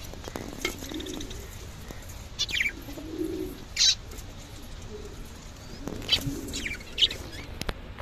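Zebra finches giving a few short, high chirping calls, spaced a second or more apart, over soft low pigeon cooing.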